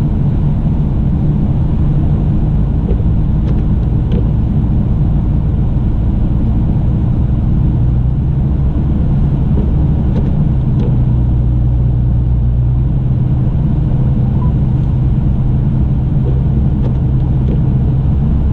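Truck engine running steadily at low road speed, a constant low drone with road noise; the engine note shifts slightly about eight seconds in.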